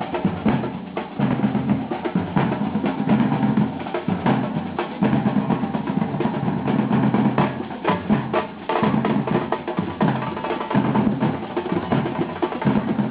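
Percussion music: drums playing a fast, busy rhythm of closely packed strikes.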